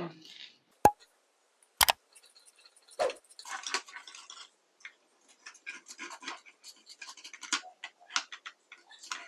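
Scissors snipping through printed fabric, trimming the excess cloth from a wire lantern frame: a quick run of short crisp snips with the cloth rustling. Two sharper clicks come about one and two seconds in.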